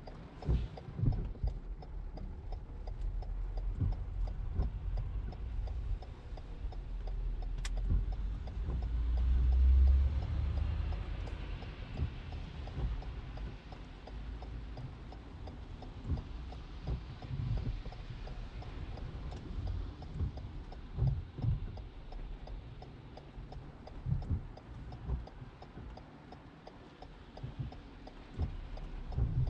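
Car's turn-signal indicator ticking steadily inside the cabin, over a low rumble of the car and traffic on wet roads with irregular dull thumps. A deeper rumble swells about eight to ten seconds in.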